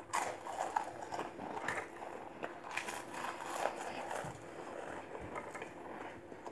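Saltine crackers crunching as two people bite and chew them fast, a run of irregular dry, crackly crunches.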